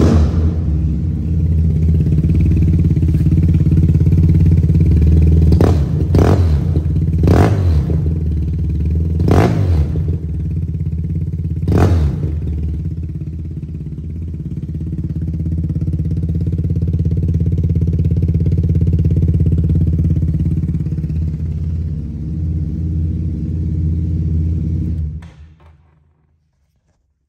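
Yamaha TMAX 500's parallel-twin four-stroke engine, breathing through a Giannelli exhaust, idling and blipped about five times in the first 12 seconds, revving up sharply and dropping back each time. It then runs steadily before being switched off about 25 seconds in.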